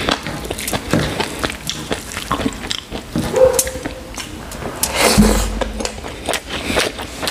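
Fingers mixing rice into thick chicken curry gravy by hand, a run of wet, sticky squishes and small clicks.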